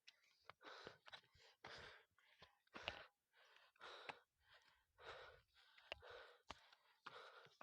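Near silence, with faint breaths about once a second from someone walking uphill, and a few small clicks.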